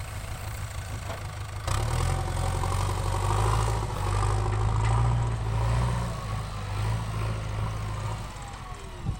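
Heavy machine's diesel engine idling, then pulling harder under load for several seconds, louder and deeper, before easing back toward idle.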